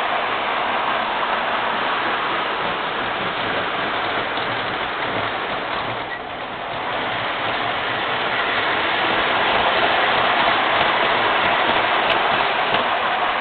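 MTH O-gauge R40 subway model running on its track, a steady rushing noise of wheels and motor. It dips briefly about halfway through and grows louder as the train comes round again.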